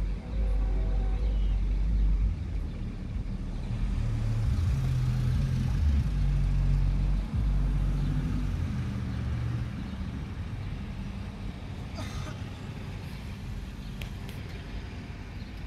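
Low, steady vehicle rumble, loudest in the first half and easing off after about ten seconds. A couple of sharp knocks come near the end.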